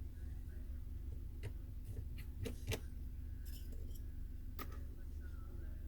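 About five light, sharp clicks and taps of small tools on iPhone X parts during disassembly, spread out with the loudest near the middle, over a steady low hum.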